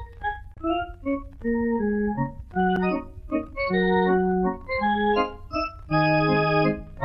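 Organ music accompanying the silent film: a lively run of short held chords and melody notes that change every half second or so, with a steady low hum underneath.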